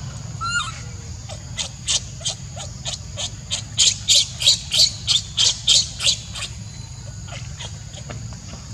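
Baby macaque crying: a short falling squeak, then a rapid run of short, high-pitched squeals at about three a second, loudest in the middle.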